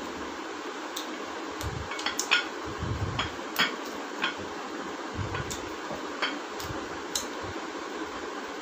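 Eating sounds: scattered short smacks and clicks of chewing by mouth, and of hands at the plates and a plastic soft-drink bottle, over a steady hiss.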